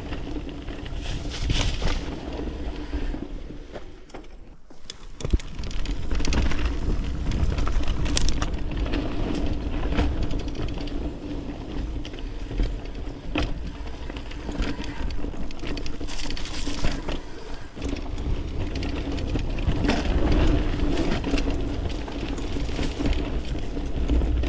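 Mountain bike riding down a dirt trail: tyres rolling over rough ground, with the bike clattering and rattling over bumps and a deep steady rumble. It eases off briefly about four seconds in.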